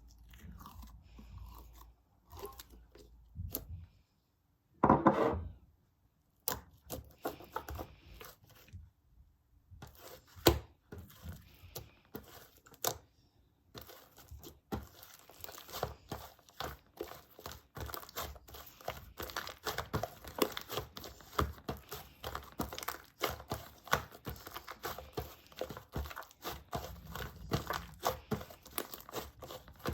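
Slime being kneaded and stretched by hand, making sticky crackling, tearing and popping sounds. Short pauses break up the first half, and from about halfway on the small pops come thick and continuous.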